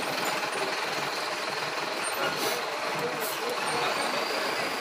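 Engine running and road noise heard from inside a slowly moving vehicle, steady throughout, with two brief hisses about halfway through.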